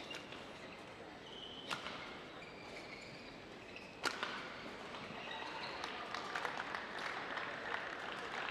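Badminton rally: three sharp racket-on-shuttlecock strikes, the loudest about four seconds in, with short shoe squeaks on the court mat between them. Crowd noise then swells in the hall for the last few seconds.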